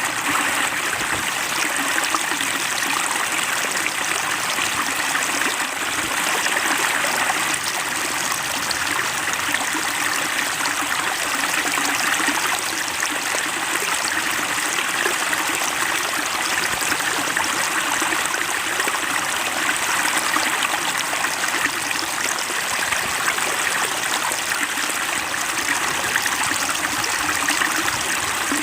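Water flowing and splashing steadily in a small stream.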